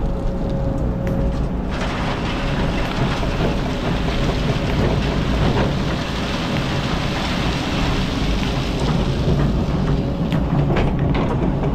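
Kobelco hydraulic excavator's diesel engine running steadily while its bucket empties a load of sand and gravel into a dump truck's bed: a rushing hiss of falling material starts about two seconds in and fades away near the ten-second mark. A few sharp knocks follow as the bucket goes back into the pile.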